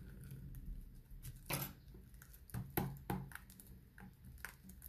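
Faint handling sounds of a plastic Blu-ray case being unwrapped: a knife scraping and clicking along the case's edge to slit the shrink wrap, then fingers picking at the wrap, with a handful of short clicks.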